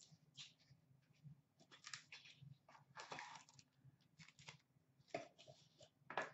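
Faint, scattered rustling and scraping of a hockey card box's packaging as it is handled and opened by hand.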